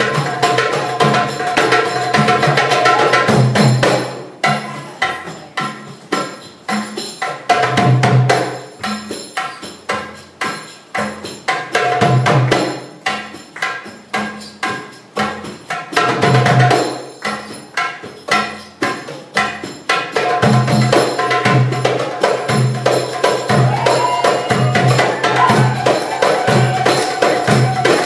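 Live Middle Eastern hand percussion for a belly dance drum solo: goblet drums (darbuka) play deep dums and sharp taks, and a tambourine jingles along. The playing is dense for the first few seconds and again from about two thirds of the way through. In between come spaced, accented strikes broken by fast rolls.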